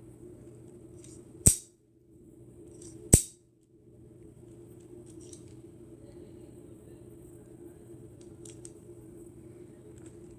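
Lego revolver's mechanism clicking and snapping: two sharp snaps about a second and a half apart, each just after a lighter click, then a few faint clicks later on.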